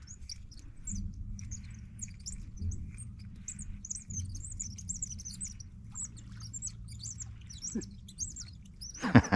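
Birds chirping and twittering continuously in quick high-pitched notes over a steady low rumble, with one sudden loud knock near the end.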